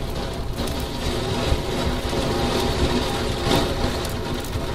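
Heavy rain hitting a window pane in a dense, steady patter, with scattered louder spatters and a steady low rumble underneath.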